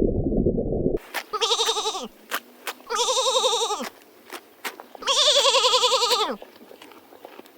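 A low rumbling noise cuts off abruptly about a second in. Then a goat bleats three times, each call quavering and dropping in pitch at the end, the third the longest and loudest, with faint clicks between the calls.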